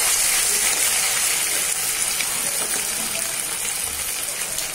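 Marinated chicken pieces deep-frying in hot oil in a kadai: a steady, dense sizzle that eases slightly toward the end.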